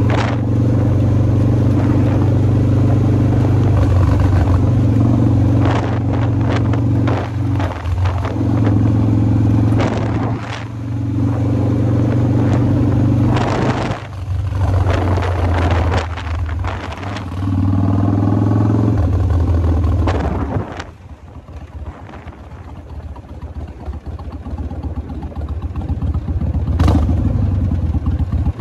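Kawasaki Vulcan 1600 Mean Streak's V-twin engine running under way, its note dropping out and resuming several times as the bike shifts and changes throttle, with gusts of wind noise on the microphone. About twenty seconds in it falls back to a quieter, lower note as the bike slows, then picks up again near the end.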